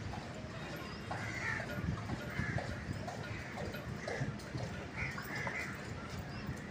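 Crows cawing repeatedly, a short call every second or so.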